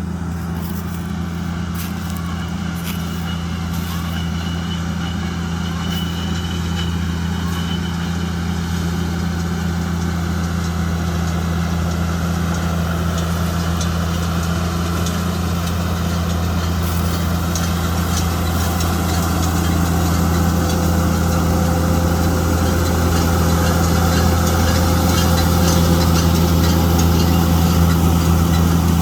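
Steady engine drone of a JCB Fastrac 2170 tractor working a Fusion 2 baler-wrapper in rice straw, growing gradually louder.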